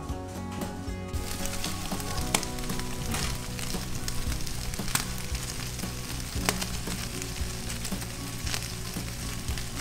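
Food sizzling in a cast-iron skillet on a gas grill, a steady hiss with scattered crackling pops that starts about a second in.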